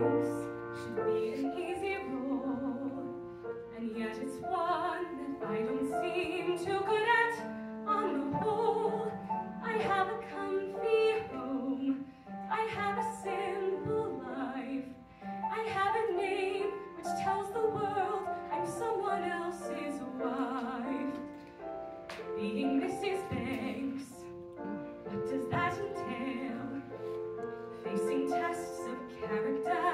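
A young woman singing a musical-theatre song into a handheld microphone, with held, wavering notes over a piano accompaniment.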